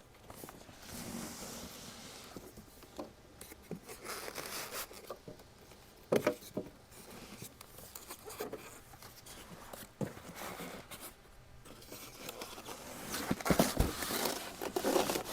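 Cardboard box and packing material rustling and scraping as a diesel heater is slid out of its box, with a few knocks; the handling is busiest and loudest near the end.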